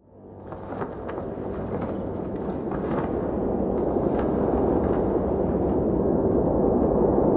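Background music fading in: a low, swelling drone of sustained tones that grows steadily louder.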